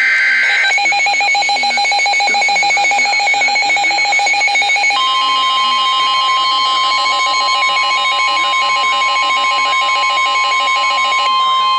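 EAS alert signalling on a NOAA Weather Radio broadcast: the tail of a warbling two-tone SAME digital header burst, then a rapid pulsing alert beep, and from about five seconds in the steady 1050 Hz NOAA Weather Radio warning alarm tone sounding over it.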